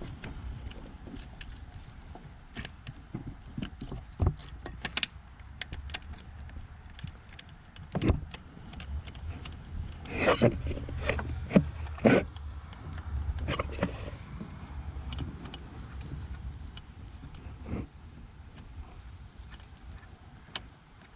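Hand tools and parts clicking and clinking as an ignition coil is refitted in the engine bay: scattered light clicks, with a cluster of louder clicks about ten to twelve seconds in, over a low rumble.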